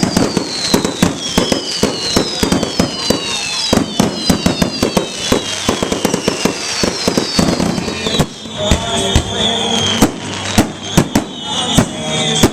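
Fireworks display going off in rapid succession, with many sharp bangs. Several falling whistles overlap through most of it, and steadier high whistles follow near the end.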